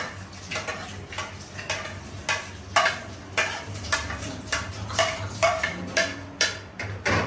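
A metal spoon scraping and tapping chopped fruit off a plate into a steel pot: short sharp clicks and scrapes about twice a second, some with a brief ring.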